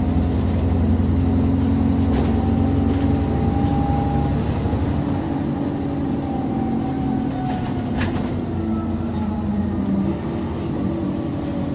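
Cummins ISB6.7 diesel engine of an ADL Enviro400 double-decker bus running as the bus drives along, heard from inside the lower deck as a steady low drone. A sharp click sounds about eight seconds in.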